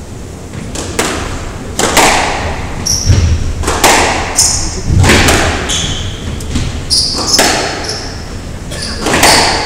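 A squash rally: the ball is struck by racquets and smacks off the walls about once a second, each hit echoing around the court. Short high squeaks from the players' shoes on the wooden floor come in between.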